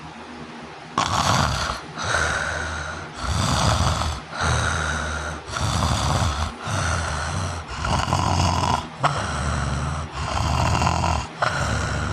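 Loud snoring from a sleeping person with obstructive sleep apnea. After a quiet stretch with only a steady background hiss, the snoring starts abruptly about a second in and runs on as harsh snores roughly one a second, the sign of breathing resuming after an apnea pause.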